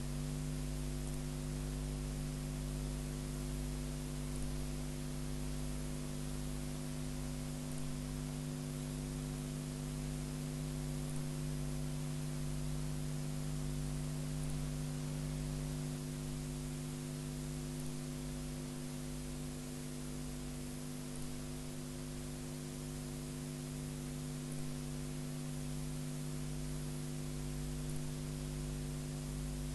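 Steady electrical mains hum, a buzz built on the 50 Hz supply, over a constant background hiss.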